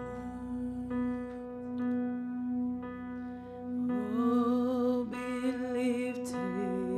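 Soft worship music with steady sustained chords, and a singer's voice coming in about four seconds in.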